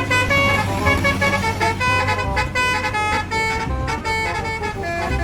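Multi-tone 'telolet' bus air horn playing a quick tune of short notes at changing pitches, over a low vehicle hum.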